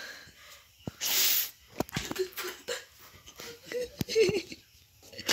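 A person's breathy, wheezing sounds, with short bits of voice and a few sharp clicks.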